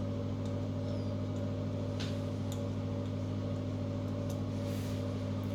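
A steady low machine hum with a few faint, light clicks of small tap parts being handled.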